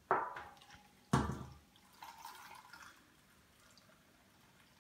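Mint infusion poured from a stainless steel bowl into a glass jar of cut apple: two splashes about a second apart, then a thinner trickle about two seconds in.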